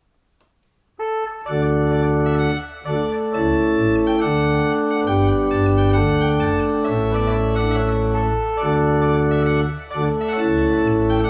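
Digital church organ playing a slow melody on a loud reed stop over a quieter accompaniment and pedal bass, starting about a second in after a few faint clicks of stop tabs being set. The playing pauses briefly twice between phrases.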